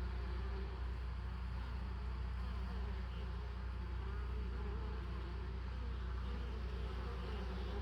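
Honeybees buzzing around the hive entrance: a steady drone with the wavering, rising and falling pitch of single insects flying close past.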